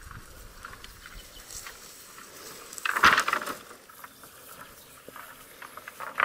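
A bundle of long cut branches rustling and swishing as it is carried through grass, with two louder rustling rushes: one about three seconds in, and one at the very end.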